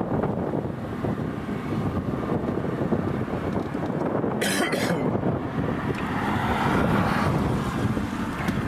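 Wind buffeting the microphone as a steady low rumble and hiss, with a short, sharper burst of hiss about four and a half seconds in.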